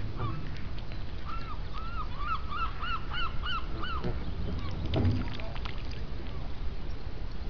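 Canada goose honking: a quick run of about ten short, arched calls, one after another. A low thump about five seconds in.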